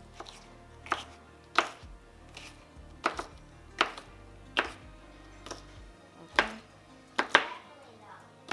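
Kitchen knife chopping vegetables by hand: about a dozen sharp, uneven strokes, roughly one a second.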